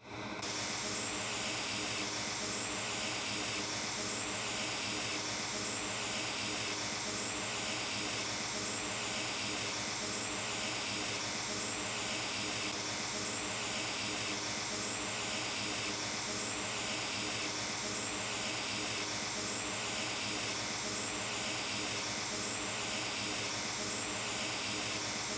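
Hot air rework station blowing a steady hiss onto the board while a BGA chip is reflowed under flux. The sound cuts in abruptly and carries a slight regular pulsing about once a second.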